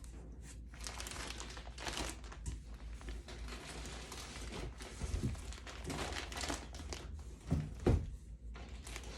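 Plastic packaging crinkling and rustling in irregular bursts as yarn is unpacked by hand, with two soft thumps near the end.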